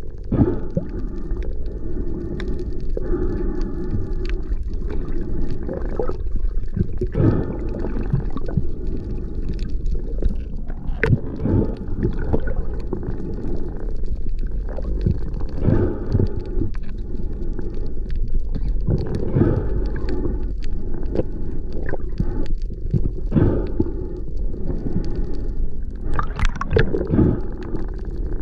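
Underwater sound heard through a camera housing: a steady low water rush, with irregular gurgles and knocks every second or two.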